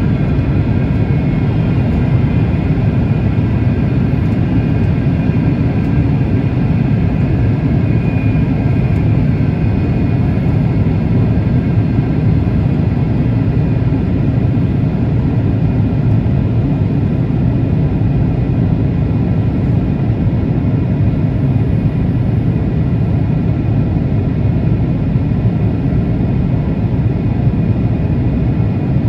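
Airliner cabin noise in flight: a steady rumble of engines and airflow, with faint high whining tones that fade away over the first several seconds.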